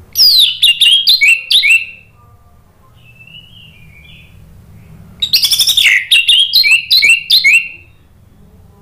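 Orange-headed thrush singing: two loud phrases of quick, downward-sweeping whistled notes, one right at the start and one about five seconds in, with a faint short warble between them.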